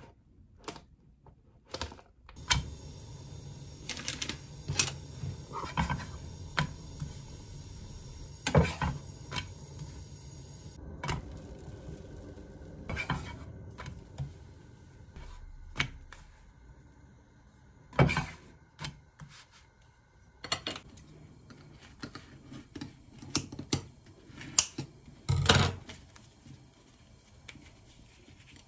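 Cooking clatter at a gas stove: a non-stick frying pan and a spatula knocking and scraping against it as a naan is warmed and turned, with scattered sharp clicks and knocks. A steady hiss runs through the first several seconds.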